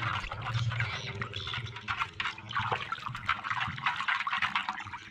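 Water sloshing and splashing in a basin as a hand scrubs a toy dragon under the water, continuous and irregular.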